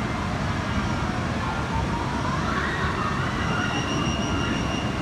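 Steady outdoor ambient noise with a low rumble and faint high tones that come and go.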